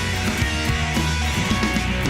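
Rock music with electric guitar and a drum kit, at a steady level.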